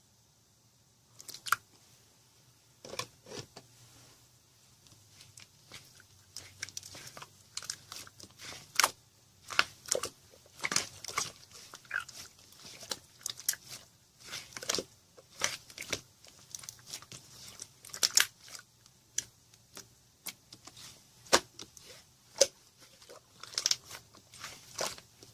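Clear slime being squished and pressed by hand, giving irregular sticky clicks and pops from about a second in, coming more densely later.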